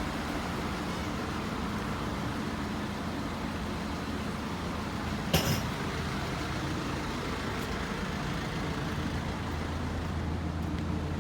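A truck engine idling steadily, with one sharp knock about five seconds in.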